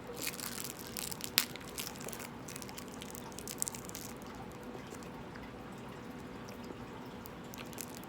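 Scattered small clicks and crackles from handling and eating jelly beans, with one sharp click about one and a half seconds in, over a faint steady hum.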